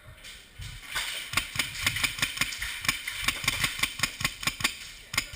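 Airsoft gun firing a rapid string of shots, about five a second for roughly three and a half seconds, with one more shot near the end.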